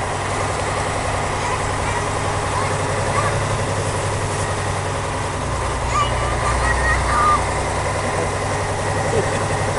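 Praga V3S military truck's air-cooled six-cylinder diesel engine running steadily as the truck drives, heard from inside the cab.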